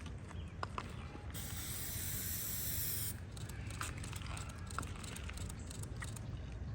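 A sharp-edged hiss lasting nearly two seconds, starting and stopping suddenly, over a steady low rumble with scattered small clicks.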